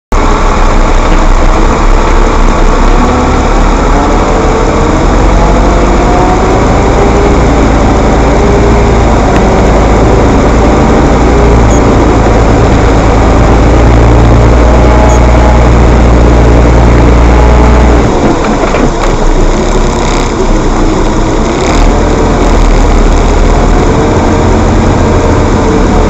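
Heavy diesel site machinery engine running hard: a loud deep rumble with a wavering higher drone over it. The deep rumble drops away about 18 seconds in and the engine runs on more lightly.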